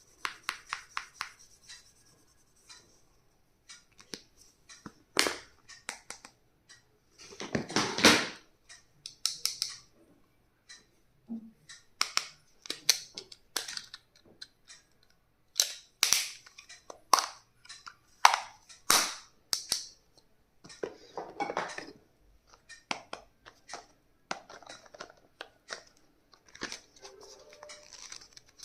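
Stationery and its packaging being handled: an irregular string of sharp clicks and snaps with bursts of rustling, the longest and loudest about eight seconds in.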